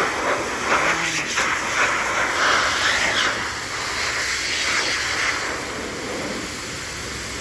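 Forced-air dog grooming dryer blowing through its hose nozzle into a Samoyed puppy's thick coat on the legs and hindquarters: a loud, steady rushing hiss that swells and dips as the nozzle moves, easing a little after about six seconds.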